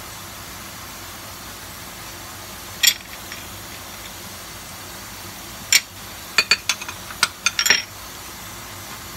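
Kitchenware clinking over a steady hiss: a single sharp clink about three seconds in, another near six seconds, then a quick run of clinks and taps, like a glass bowl and a metal spatula knocking against a pan.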